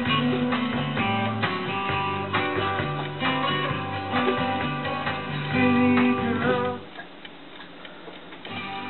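Guitar-led rock music playing back from a car computer's MP3 player. It drops out about seven seconds in as the player loads a new track, and the music picks up again near the end.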